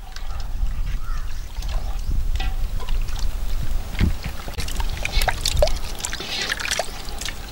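Liquid poured from a steel tumbler into an aluminium cooking pot and stirred with a ladle, with scattered light clicks over a low, steady rumble.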